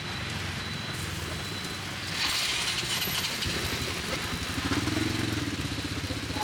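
Motorbike engine running, with a short burst of hissing about two seconds in.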